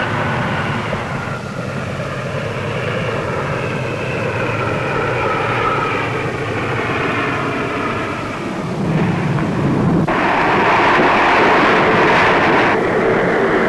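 Four-engine turboprop of a C-130 Hercules transport heard from the cockpit on final approach, its engine tone falling slowly for several seconds as power comes back. About ten seconds in, a louder rushing roar sets in abruptly.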